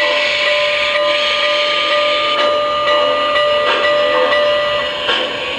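Onboard sound system of a model Norfolk & Western J steam locomotive: a long, steady whistle chord over steam hiss that cuts off near the end. Slow chuffs begin about halfway through as the engine starts to pull away.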